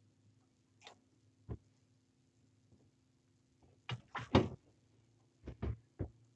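Knocks and clunks of things being handled on a fishing boat's deck: a single knock near the start, a loud cluster of clatter about four seconds in, then three quick knocks.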